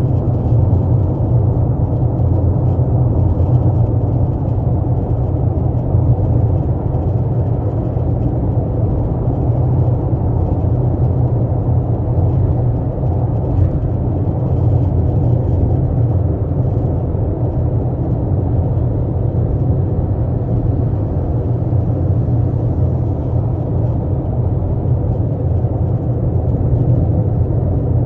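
A 12th-generation Toyota Corolla Altis on the move: a steady low rumble of road and engine noise that holds even throughout. It is recorded as the car's unusual noise (異音).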